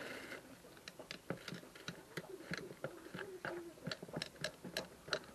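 A run of light, sharp ticks, about four a second and not quite even.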